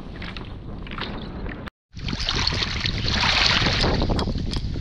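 Wind buffeting the microphone over choppy water, broken by a brief dropout about two seconds in, after which it comes back louder with a rushing hiss.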